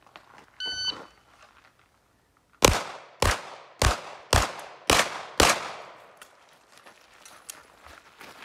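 Electronic shot timer start beep, then six pistol shots from an M&P 2.0 Competitor fired in a quick string, about half a second apart. Each shot has a short ringing tail.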